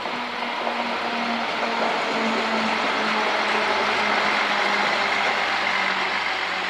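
ČD class 843 diesel railcar passing close by, its diesel engine running with a steady low hum over the rush and rumble of the wheels on the rails. It grows a little louder as the train draws level.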